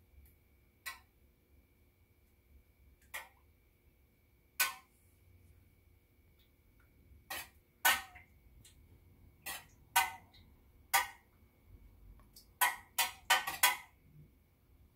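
A stirring utensil knocking against the inside of a metal candle-wax pouring pitcher as fragrance oil is stirred into melted soy wax: irregular sharp clinks, a few seconds apart at first, then several in quick succession near the end.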